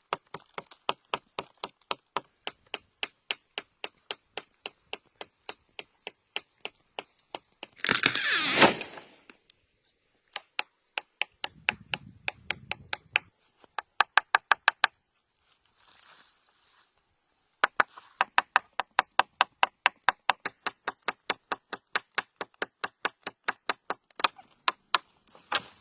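Rapid, evenly spaced sharp knocks, about three to four a second, in long runs with a couple of pauses, like a tool striking repeatedly. A louder rushing, scraping burst comes about eight seconds in.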